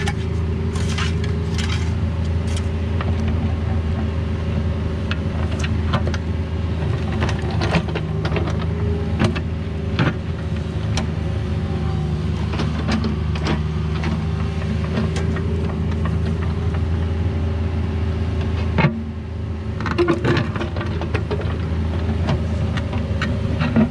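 A Cat 304 mini excavator's diesel engine runs steadily under hydraulic load while its bucket digs a trench. Irregular clanks and scrapes come from the bucket and soil throughout. The engine drone dips briefly once, a little past three-quarters of the way through.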